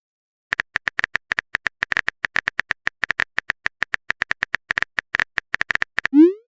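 Phone-keyboard typing sound effect, a rapid run of light taps at about nine a second, followed near the end by a short rising pop as a chat message is sent.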